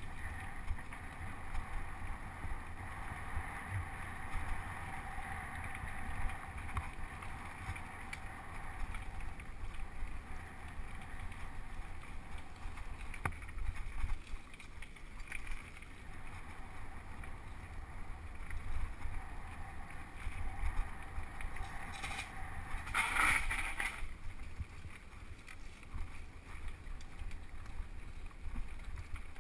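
Mountain bike rolling fast down a dirt forest trail: a steady rumble of tyres over the ground and the bike rattling, with wind buffeting the action camera's microphone. A brief louder rush about 23 seconds in.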